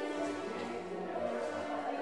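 Slow orchestral music with long held notes.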